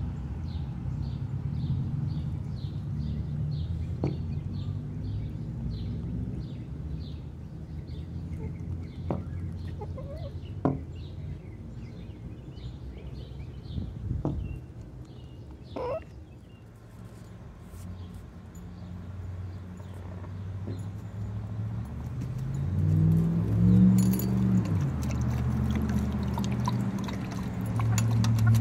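Backyard chickens clucking softly, with a few short clicks, over a steady low hum that swells into a louder, bending drone about three quarters of the way through.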